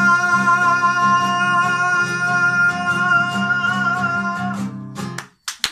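A man holds one long, loud final sung note over a strummed acoustic guitar, and both stop together about five seconds in. After a brief silence, the first sharp claps of applause begin near the end.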